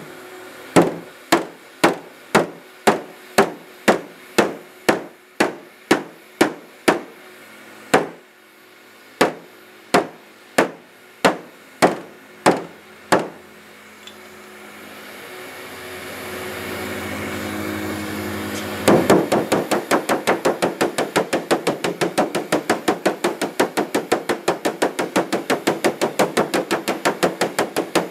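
Hammer tapping on the dented aluminium hood of a car to knock down high spots: evenly spaced blows about two a second for the first half. After a pause a steady hum swells, and then a fast run of light taps at about four a second takes over.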